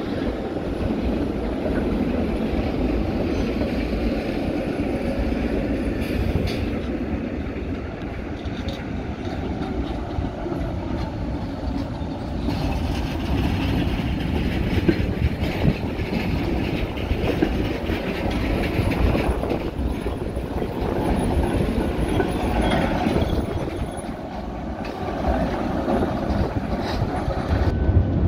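A two-car street tram running past close by on its rails: a steady rumble of wheels and running gear, with a few sharp clicks.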